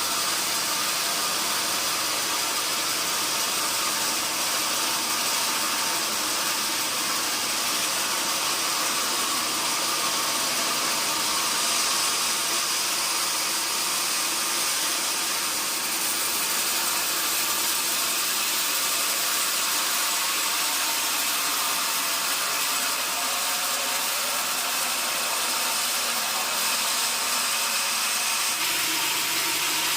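Sawmill band saw running steadily: a loud, even hiss with a faint machine hum beneath it.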